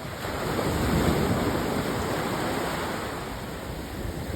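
Sea waves washing onto a sandy beach: a steady rush of surf that swells about a second in and eases off toward the end.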